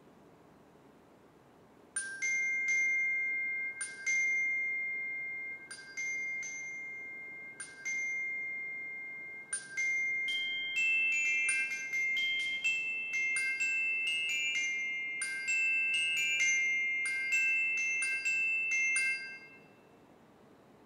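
Glockenspiel played with mallets: high, bell-like notes struck one at a time about every two seconds, each left ringing. About ten seconds in they give way to a quicker, denser run of overlapping notes, which stops a little before the end.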